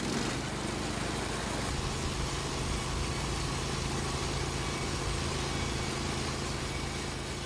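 Norwood Lumber Pro HD36 sawmill's engine running steadily at a constant speed, with an even mechanical hum.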